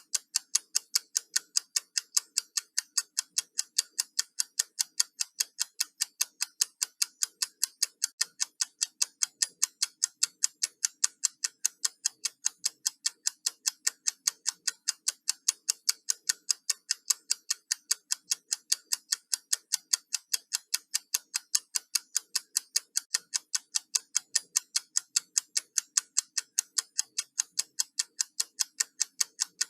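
Countdown timer ticking: a fast, perfectly even run of crisp, high clicks, like a clock's tick.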